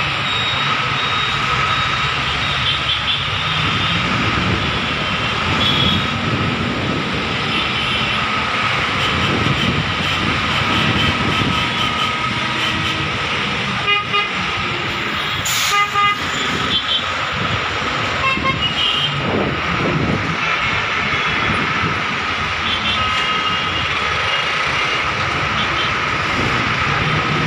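Jammed city traffic: a steady din of idling engines and slow-moving vehicles, with many short horn toots from different vehicles throughout and a sharp click about halfway.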